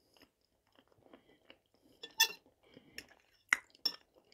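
Quiet chewing of boiled potato vareniki, with a few short sharp clicks of a fork against the plate, about two, three and a half and four seconds in.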